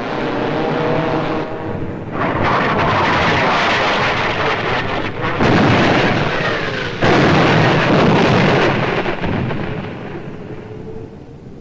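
Bombs exploding in a heavy, continuous barrage. The noise swells about two seconds in, sharp louder blasts hit around five and a half and seven seconds, and then it dies away over the last few seconds.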